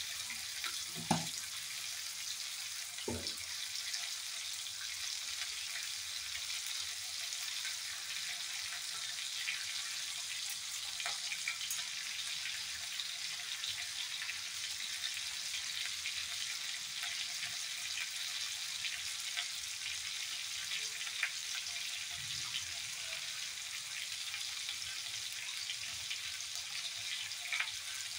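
Hot oil sizzling steadily in a small tempering pan with dried red chillies, with two short knocks in the first few seconds.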